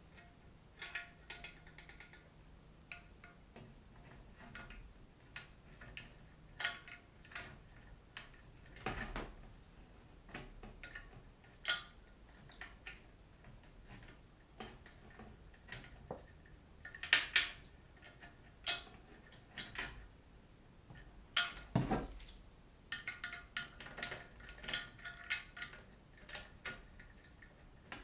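Scattered clicks and light metallic clinks of computer parts being handled during a PC build, with a louder pair of clicks about seventeen seconds in and a dull knock about twenty-two seconds in.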